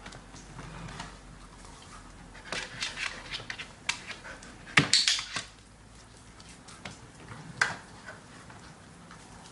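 A dresser drawer knocked shut about halfway through, a loud knock with a short clatter, with a run of light clicking taps just before it. One sharp click comes near the end.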